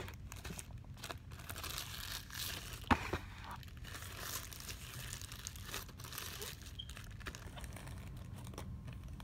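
Phone case packaging being handled and opened, rustling and crinkling unevenly as the case is taken out, with one sharp click about three seconds in.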